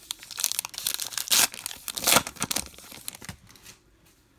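Baseball card pack wrapper being torn open and crinkled, with the loudest rips about a second and a half and two seconds in; the tearing stops about three and a half seconds in.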